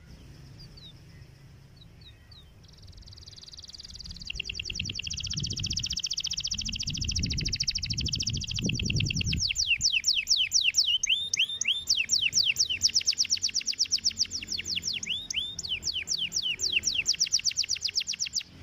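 Domestic canary singing: a few short chirps, then from about three seconds in a long unbroken song of rapid rolling trills, fast-repeated notes that switch from one trill to another and grow louder.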